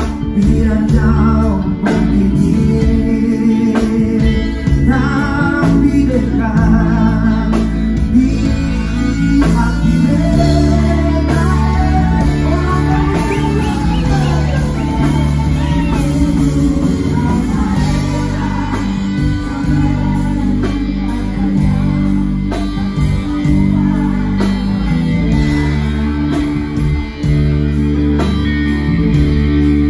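Band music with guitar and a singer, playing steadily and loud.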